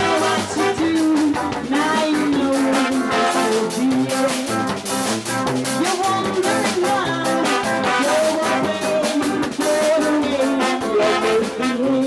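Live funk band playing, with the drum kit keeping a steady beat under the band's pitched instruments.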